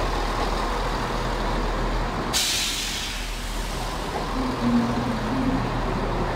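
ScotRail Class 170 Turbostar diesel multiple unit pulling out and running past, its underfloor diesel engines droning. A sudden sharp hiss of released air cuts in about two seconds in and dies away over a second or so.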